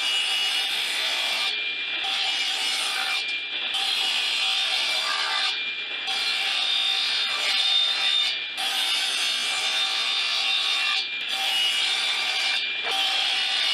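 Table saw running and cutting through reclaimed wooden boards, a steady sawing sound that dips briefly every two seconds or so, in a series of cross cuts.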